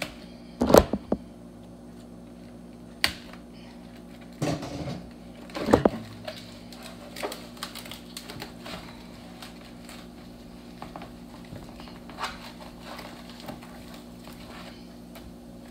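Knocks and clatter of things being handled in a kitchen, loudest about a second in and again around five to six seconds, then lighter scattered taps, over a steady low hum.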